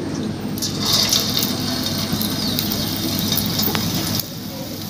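A batter-coated potato strip sizzling in a kadai of hot oil. The sizzle starts about half a second in, as the strip goes into the oil, and falls away near the end.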